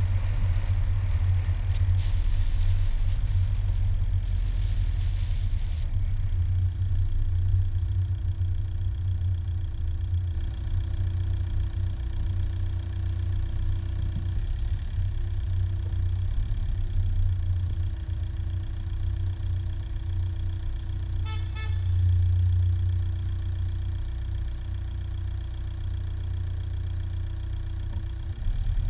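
A car driving slowly, heard from inside the cabin: a steady low rumble of engine and tyres on the road. About 21 seconds in comes a brief beep, which could be a horn.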